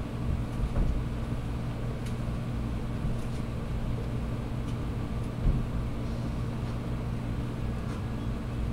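Room tone: a steady low hum with faint background noise, and a few soft knocks.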